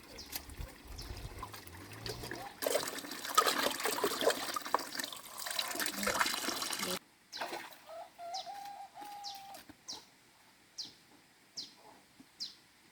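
Water splashing loudly for about four seconds, then cutting off abruptly. After that, a bird calls repeatedly in short, high, falling chirps, roughly one a second.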